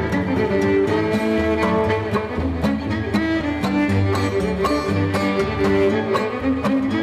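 Live string band playing a contra dance tune: fiddle melody over guitar and upright bass, with a steady beat.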